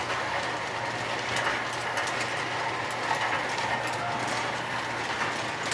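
Lionel R-16 model subway train running along the track: a steady running noise with light, irregular clicking from the wheels.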